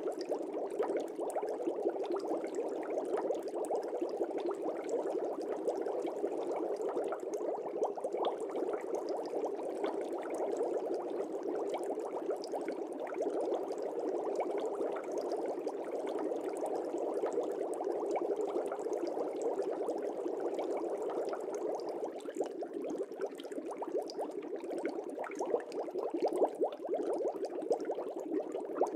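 Fish-tank air bubbles: a steady, dense bubbling of many small bubbles in the water, with no change in level.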